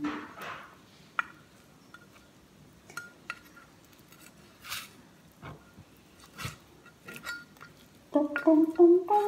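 A meat cleaver knocking and clinking a few times at irregular intervals as it chops through raw chicken on a board. From about eight seconds in, a woman hums a tune.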